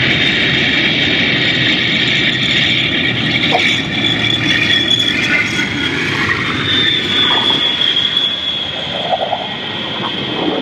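F-111 jet's turbofan engines running at takeoff power: a loud, steady rush with a high-pitched whine that wavers slightly in pitch.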